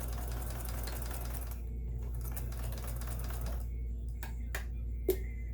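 Kenmore 158 series sewing machine running to stitch a sample, in two runs with a short stop between, followed by a few sharp clicks near the end.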